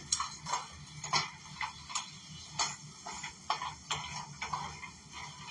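Nuts being stirred with a spatula in a frying pan: irregular clicks and taps of the nuts and spatula against the pan.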